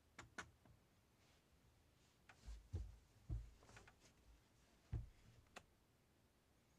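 Faint handling sounds of a wooden screen-printing squeegee being gripped and moved on a wood-framed silkscreen: a couple of light clicks, then several soft thumps and a short scrape.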